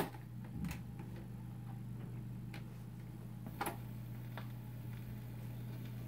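A click as the tone arm of a 1949 Admiral 6F11-N radio-phonograph is set down. Then the needle runs in the record's lead-in groove over a steady amplifier hum, with a few scattered ticks and pops.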